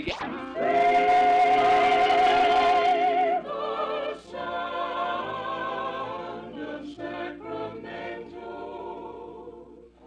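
Mixed vocal group singing a radio jingle in close harmony. A loud chord is held with vibrato for about three seconds, then a moving phrase of chords follows and fades toward the end.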